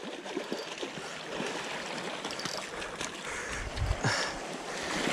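Steady wash of sea water swirling around the rocks, with a brief low thump about four seconds in.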